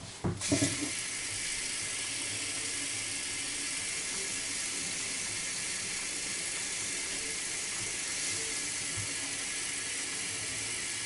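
Water running steadily from a tap into a plastic coffee-machine water tank as it is filled, starting suddenly about half a second in.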